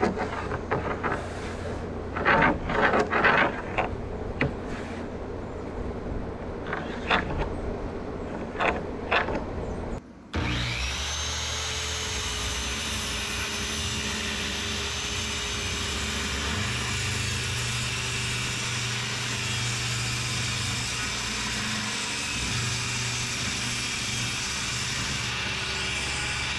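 A few scattered knocks and scrapes. Then, after a sudden break about ten seconds in, a power saw runs steadily with an even whine, cutting a subfloor sheet down to size.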